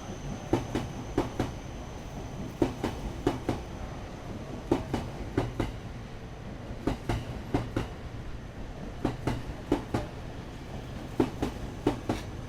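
Electric commuter train rolling past at steady speed, its wheels clacking over a rail joint: groups of four clacks, one group for each car's two bogies, about every two seconds, over a steady low rumble.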